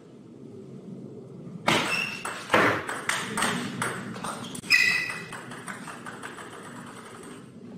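Table tennis rally: the plastic ball clicking off rackets and the table in a quick run of sharp ticks starting about two seconds in, loudest near the end of the rally. It is followed by a string of fainter ticks dying away, as the ball bounces to a stop.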